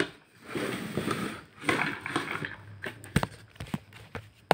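Rustling handling noise as a plate of dried mace is brought up close to the phone, with a sharp knock about three seconds in and a click at the end.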